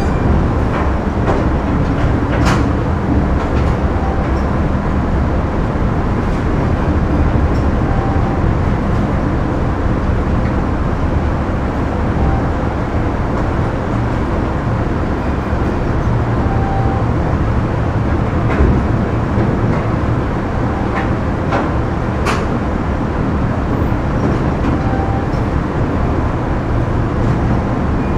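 Factory machinery running: a steady, dense industrial din with a low hum, broken by a few sharp metallic knocks.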